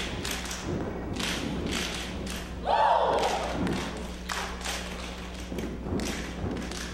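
Step team stepping: rhythmic foot stomps and hand claps, with a loud shout about three seconds in.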